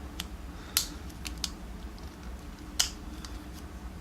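Sharp metallic clicks of circlip pliers working at the retaining clip of a dimple lock cylinder: a handful of scattered clicks, two louder ones about a second and three seconds in.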